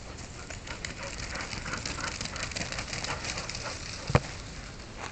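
Footsteps crunching on gravel with scattered light ticks, and one sharp thump about four seconds in.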